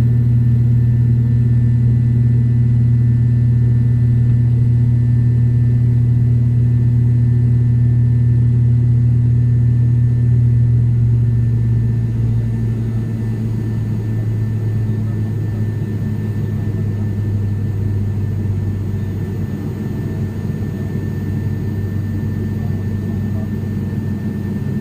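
Turboprop airliner engine and propeller heard from inside the cabin: a loud, steady low drone. About eleven seconds in, the drone gets a few decibels quieter and its deepest tone weakens as the propeller speed changes during the climb after takeoff.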